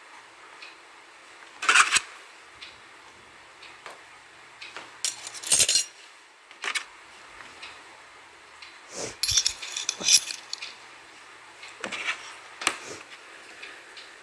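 Miniature stainless steel kitchen utensils (tiny pans, bowls and spoons) clinking and clattering against each other as they are handled and set down. The clinks come in scattered bunches: a sharp clatter about two seconds in, a jingle around five to six seconds, and a run of clinks around nine to ten seconds, with a few more near the end.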